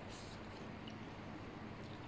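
Faint wet mouth sounds of a person chewing instant noodles, with a couple of soft clicks, over a steady low hum.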